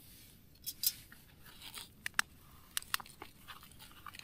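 Packaging of a meal pouch being crinkled and torn open: a run of sharp crackles and rips, loudest about a second in and again past the two-second mark.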